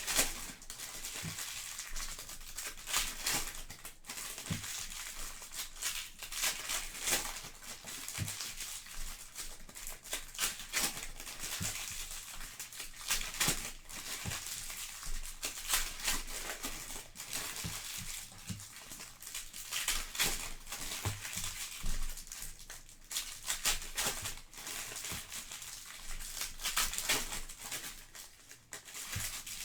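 Plastic wrapping crinkling and being torn as trading card packs and boxes are unwrapped by hand, a continuous rustle broken by many short sharp crackles.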